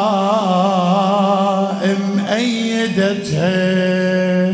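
A man's solo voice chanting a Muharram elegy (latmiya poem) in Iraqi Arabic, holding long wavering notes. There is a short break in the line about two seconds in.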